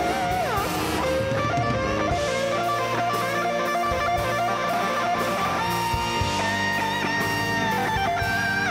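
Live band with electric guitar, bass, drums and keyboards playing a slow rock ballad, an electric guitar carrying the lead with long held notes and bends down in pitch.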